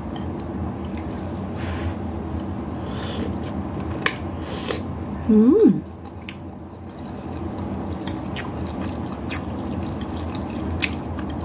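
Chopsticks stirring and lifting noodles in a bowl of broth: wet dripping and splashing with a few light clicks, over a steady low hum. About five and a half seconds in comes a brief hummed "mm" that rises and falls.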